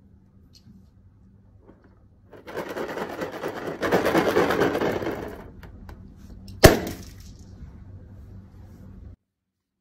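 Hands rubbing and squeezing a rubber balloon for a few seconds, then a single sharp balloon pop about two-thirds of the way through.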